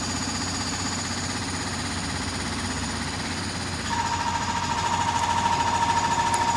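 A machine running with a fast, steady rattle; a steady whine joins it about four seconds in.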